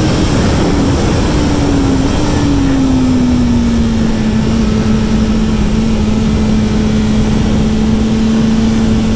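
BMW S 1000 RR's inline-four engine heard on board at track speed over a loud rush of wind noise. The engine note drops in a couple of steps over the first few seconds, then holds steady.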